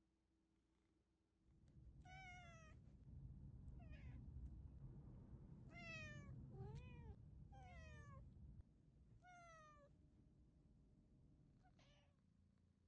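Domestic cat meowing repeatedly, about seven short meows each sliding down in pitch, over a low rumble that stops suddenly partway through.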